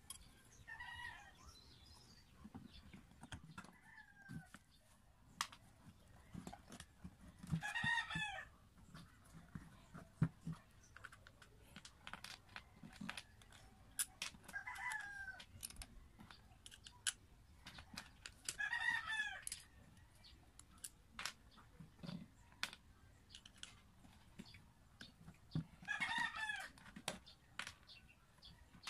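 A chicken calling about five times, a few seconds apart, each call a pitched cry about a second long. Under it are light clicks and taps from the plastic handle housing and screws of an electric planer being handled.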